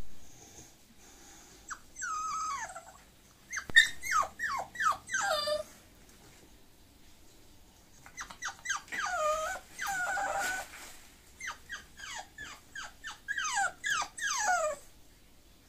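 Bulloxer puppy, a bulldog–boxer cross, whining: short high whimpers that each fall in pitch, coming in several bursts with pauses between.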